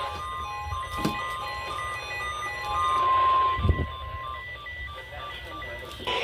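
Emergency alert tones from a broadcast Emergency Alert System activation: a steady electronic tone with short repeated beeps over it, and a few low thumps beneath. The steady tone stops a little past the middle, and the beeps carry on.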